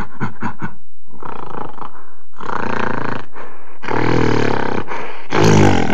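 Gorilla calls: a quick run of short grunts, then several long roars, the loudest near the end.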